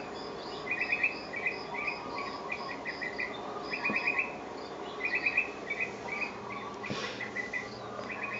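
Chirping from a cat-entertainment nature DVD playing on a television: short, rapid trills of several pulses each, about two a second with pauses. A soft knock about seven seconds in.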